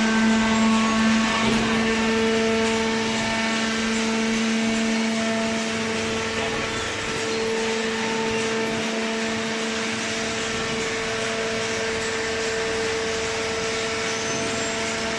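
Hydraulic paper baler running, its electric motor and hydraulic pump giving a steady hum over a noisy mechanical whir.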